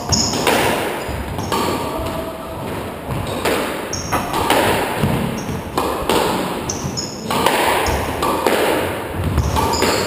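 Squash rally: the rubber ball struck by racquets and smacking off the court walls about once a second, each hit echoing in the enclosed court, with the players' shoes moving on the wooden floor.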